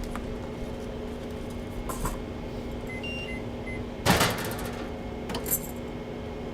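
A few short electronic beeps from an appliance's buttons about three seconds in, then a brief loud rattling clatter, over a steady electrical hum.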